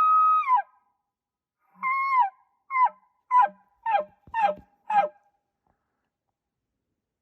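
Elk bugle made by a woman's voice with no reed. A high held whistle ends with a falling drop about half a second in. After a pause come six short descending chuckle notes, roughly half a second apart.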